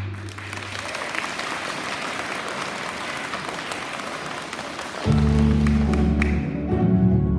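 Audience clapping as a piece ends, with the last held low string note dying away in the first second. About five seconds in, a student string orchestra of violins and cellos starts the next piece with loud sustained chords.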